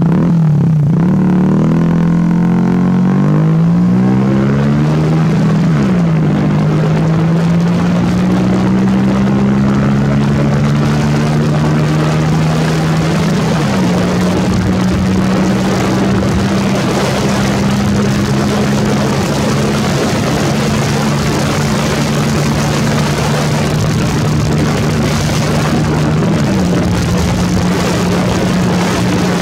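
Hero Splendor's single-cylinder four-stroke engine, fitted with an aftermarket SC Project exhaust, accelerating on a ride. The exhaust note climbs and then drops at each gear change: quick shifts in the first few seconds, then longer pulls with drops at about six, thirteen and twenty-six seconds in. A rushing wind noise grows as the bike picks up speed.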